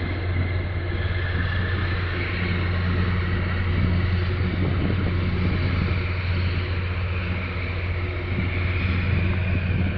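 Steady low drone of a large container ship's engines and machinery as the vessel passes close by, over a wash of water and wind noise.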